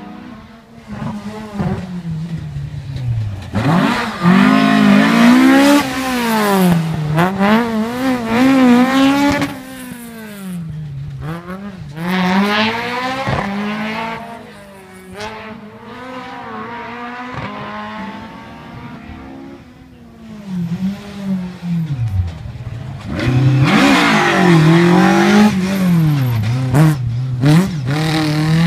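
Rally car engine revving hard through the gears on a stage, its pitch climbing and dropping sharply with each gear change and lift off the throttle. It is loudest about 4 to 10 seconds in and again from about 23 seconds, and fainter in between.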